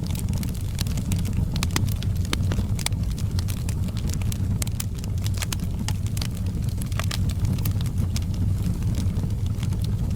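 Wood fire burning on logs in a fireplace: irregular sharp crackles and pops several times a second over a steady low rumble of the flames.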